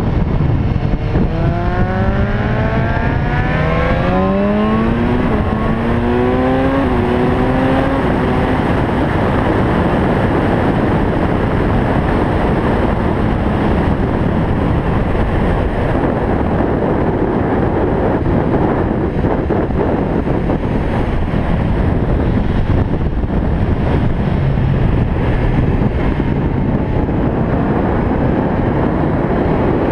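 Sport motorcycle engine accelerating hard through the gears, its pitch climbing and dropping back at each upshift about four times in the first eight seconds, then running at speed and rising again near the end. Heavy wind rush on the microphone runs underneath.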